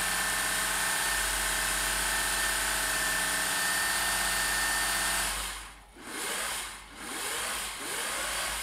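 Singer 401A sewing machine running at speed on its foot pedal: a steady motor hum with a high whine. About five seconds in it slows, then surges up and falls back about once a second, three times, as the pedal is eased on and off. The machine is freshly cleaned and oiled and sounding pretty good.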